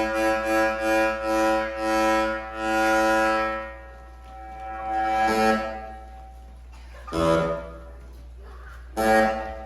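Music over a sound system: a held, pulsing chord that fades out about four seconds in, followed by short separate chords about every two seconds.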